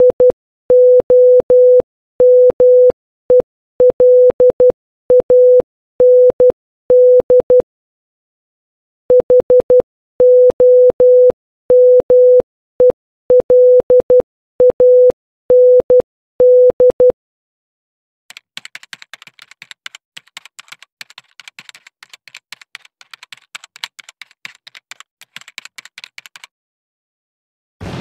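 Morse code played as a steady mid-pitched beep tone, spelling HOMELAND (.... --- -- . .-.. .- -. -..) twice with a short pause between. Then about eight seconds of rapid, quieter clicking, and a sudden burst at the very end.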